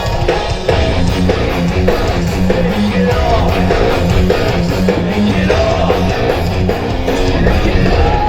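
Rock band playing live, with electric guitar to the fore over bass notes and drums in a steady rhythmic pattern.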